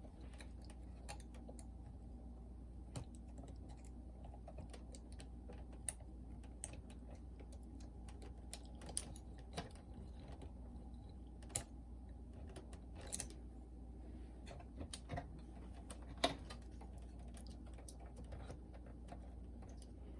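Scattered small clicks and taps of hands and a tool working at the plastic clips and parts inside an opened boombox, irregular and light, with a sharper click about 16 seconds in, over a faint steady low hum.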